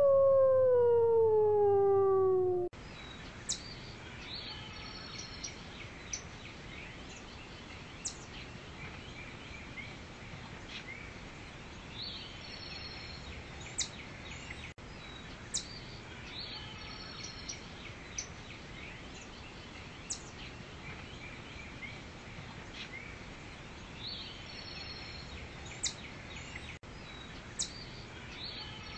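A wolf howl, falling in pitch, cuts off abruptly about two and a half seconds in. Then comes a steady forest ambience: a soft hiss with scattered short bird chirps.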